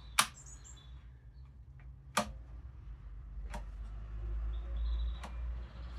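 Single sharp clicks and knocks, about one every one to two seconds, from clamps and wooden chair parts being handled and tightened during a glue-up. A low rumble swells in the second half.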